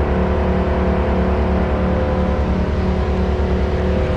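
An engine running steadily at a constant speed, a loud low rumble with an even pulsing beat.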